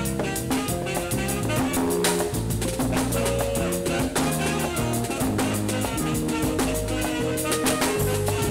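A live jazz band playing a Latin-tinged Afro-jazz groove: a busy drum kit keeps a dense, even beat under moving bass notes, with saxophone, guitar and keyboard carrying the melody and chords.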